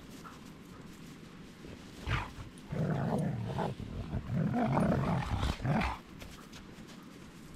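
Dog growling: a short growl about two seconds in, then a longer run of rough growls lasting about three seconds.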